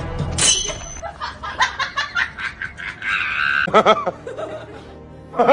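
Short bursts of laughter over music, with a quick rising sweep near the start.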